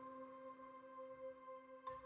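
Soft ambient background music: a held, ringing tone, with a light struck note just before the end.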